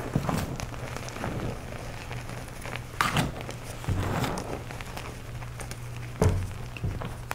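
Hands squeezing and crumbling clumps of blue powder: soft crunching and crackling, with louder thuds about three, four and six seconds in.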